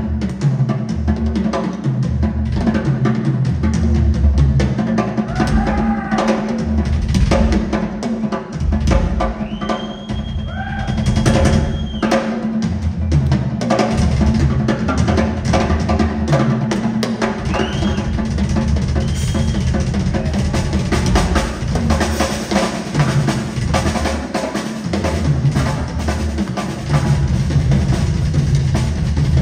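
Live drum solo on a large rock drum kit heard through a concert PA: rapid rolls around the snare and toms over repeated bass drum hits, with cymbals. A few short whistles or whoops from the audience cut through, one held for about two seconds near the middle.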